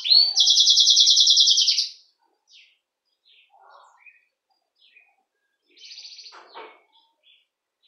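Domestic canary (canário belga) singing: a loud, fast trill of rapidly repeated notes that breaks off about two seconds in. Scattered soft chirps and a brief, quieter trill follow near the end.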